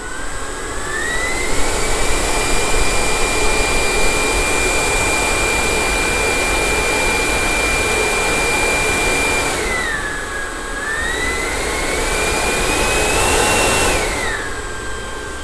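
80mm electric ducted fan with an inrunner motor running: a loud whine over a rush of air that rises in pitch about two seconds in and holds steady, drops about ten seconds in, climbs to its highest about thirteen seconds in, then falls back to a lower speed near the end.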